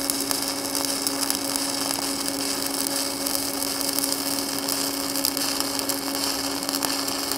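Stick welding arc from a 1/8-inch 7018 electrode burning at 125 amps with hot start and arc force off: a steady, even hiss as the rod runs smoothly.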